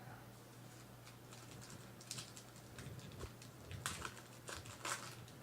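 Trading cards being handled: faint soft clicks and rustles of cards sliding and tapping against each other, several sharper ones around two, four and five seconds in, over a low steady hum.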